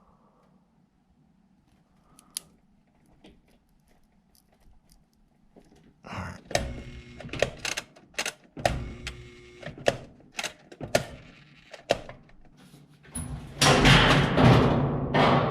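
Quiet handling clicks, then from about six seconds in repeated clicks and knocks as a washing machine's switch is turned on and off, the motor humming in short spurts between them. Near the end comes a longer, louder buzzing hum. The motor hums and heats without turning because the drain pump is jammed.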